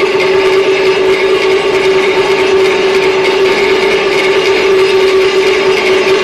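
Peking opera percussion ensemble, gongs and cymbals, played in an unbroken roll that stays at an even, loud level throughout.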